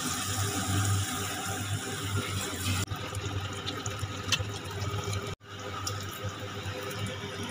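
Ridge gourd bajji sizzling steadily as they deep-fry in hot oil in a steel kadai, with a few light clinks of the steel ladle as they are stirred and lifted. The sound cuts out for an instant about five seconds in.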